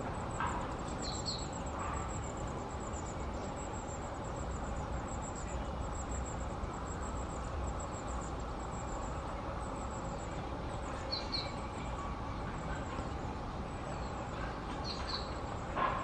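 Long-tailed tits calling with thin, very high notes, and a few short double chirps about a second in and again near the end. Under them runs a steady low rumble, like a train or traffic going by.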